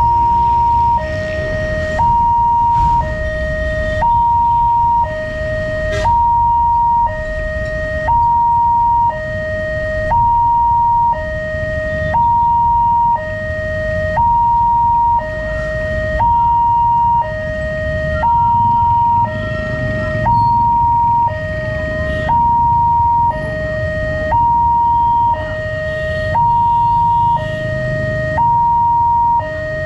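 Railway level crossing warning alarm sounding: an electronic two-tone signal alternating steadily between a higher and a lower note, each held about a second, with a low rumble underneath. The alarm warns that a train is approaching.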